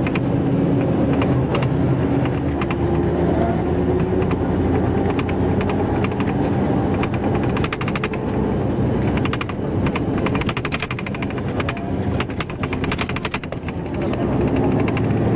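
Street traffic with a steady engine hum, and a run of rapid sharp clicks from about nine to fourteen seconds in.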